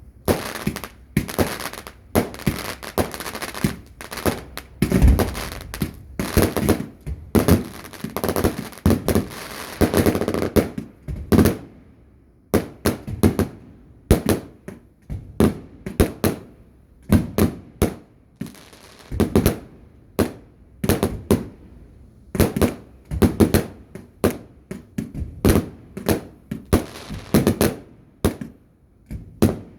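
Fireworks going off: a long run of sharp bangs, about one to three a second, each trailing a short echo, with a brief lull about twelve seconds in.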